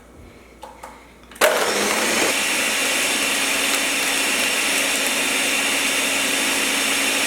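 Blender switching on about a second and a half in, then running steadily as it blends chopped pineapple, ginger, ice and water.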